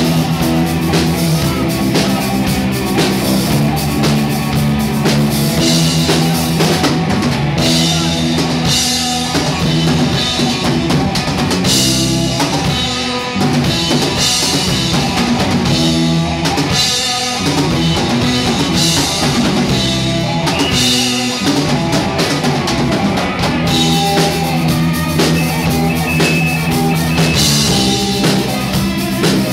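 Live rock band playing: drum kit driving the beat, with electric bass and electric guitar.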